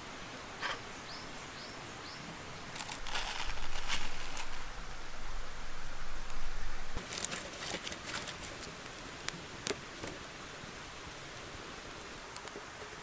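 Rustling, with a low rumble underneath, and scattered sharp clicks. Near the start there is a quick run of four short chirps, like a small bird's.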